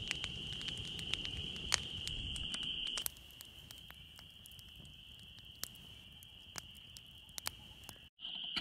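Wood bonfire crackling with scattered sharp pops, fuller with a low rumble for the first three seconds, then a quieter crackle after a cut. A steady high-pitched chorus runs in the background throughout.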